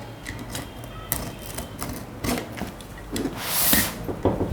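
Cardboard packing box being opened by hand: scattered clicks and cardboard rubbing and scraping, with one louder rasping rush about three and a half seconds in.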